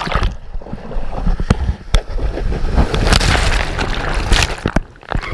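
Whitewater of a breaking wave rushing and splashing over a camera held at the water's surface and partly submerged, loudest around the middle, with a few sharp knocks of water against it.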